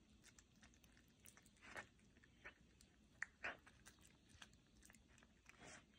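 A serval chewing a whole mouse: faint, irregular bites and crunches, a handful spread over a few seconds.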